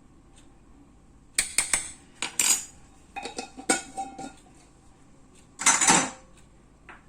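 Utensil clinking and knocking against cookware in a scattered series of short taps, then a louder, longer scrape near the end.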